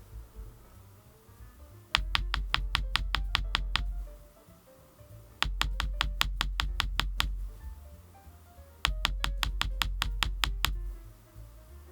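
Background music with a bass line, broken by three bursts of rapid, evenly spaced sharp clicks, each lasting about two seconds.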